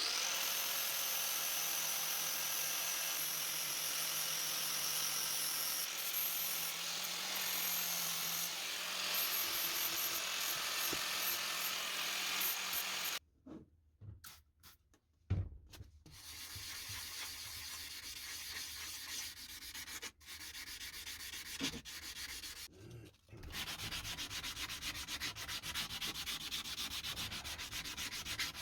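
Angle grinder with a well-worn flap disc running against the steel of a ball peen hammer head, smoothing out deep scratches. The grinding stops briefly twice, about halfway through and again later, then carries on.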